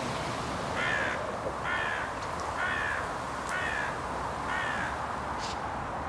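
A crow cawing five times, about once a second, over a steady rushing noise.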